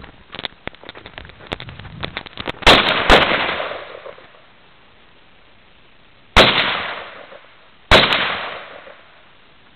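Four shots from an SKS rifle in 7.62x39: two in quick succession about two and a half seconds in, then single shots at about six and a half and eight seconds, each trailing off in an echo of about a second. Before the first shots there is a quick run of small scuffs and clicks.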